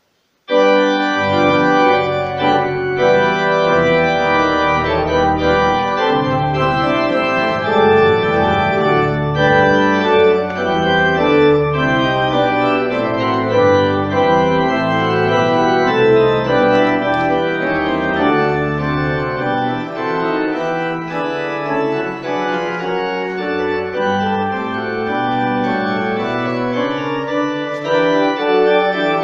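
Church organ playing full sustained chords, starting suddenly just after the start. Deep pedal bass notes sound under the chords, drop out for a few seconds past the middle, then come back.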